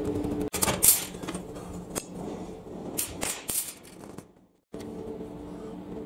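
Loose steel bike parts (sprockets, nuts, brake discs) clinking and knocking against a steel workbench as they are shifted by hand: a run of sharp, irregular clatters. After a short dropout about four and a half seconds in, only a steady low workshop hum remains.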